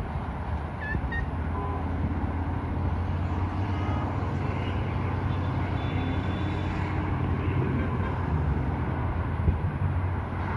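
Road traffic: cars and pickup trucks passing on the road below, a steady low rumble of engines and tyres.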